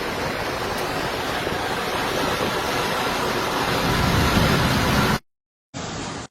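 Strong cyclone wind rushing and buffeting the microphone. It is a dense, steady noise that cuts out abruptly about five seconds in, goes silent for half a second, then returns briefly, thinner, before cutting again.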